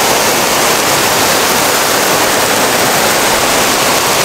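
Heavy rain pouring down, a loud steady hiss.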